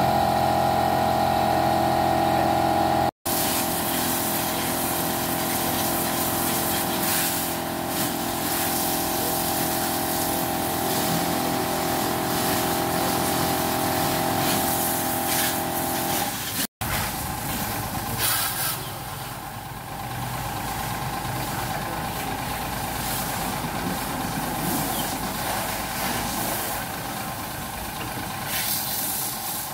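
Car-wash machinery running: a steady motor hum that cuts off abruptly twice. About halfway through it gives way to a noisier hiss of a water jet spraying the van.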